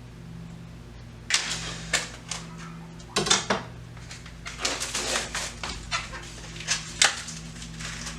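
Raw chicken strips being handled and laid into a baking dish: irregular short knocks and wet slaps, several in a row, over a steady low hum.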